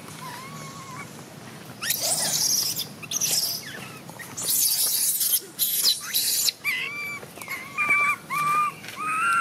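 Infant long-tailed macaque crying in distress: a short whimper, then harsh screams from about two seconds in, then a string of high, arched whimpering calls near the end. The crying of a baby kept from nursing by its mother.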